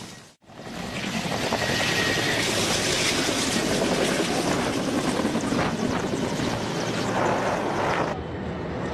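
Helicopter rotor and engine noise, loud and steady, starting abruptly about half a second in after a brief gap. Near the end it gives way to a quieter, different sound.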